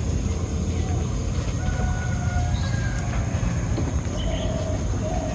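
A few short whistled bird calls and chirps over a steady low rumble.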